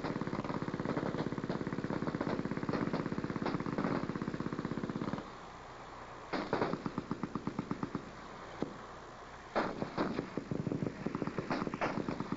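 Machine guns firing full-auto: a continuous stretch of rapid fire for about five seconds, then three short bursts with pauses between them.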